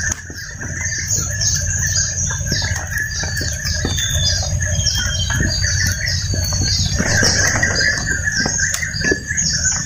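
Evening tropical forest ambience: a steady high-pitched chorus of insects, with many short repeated chirps over it. A small wood campfire crackles with scattered pops.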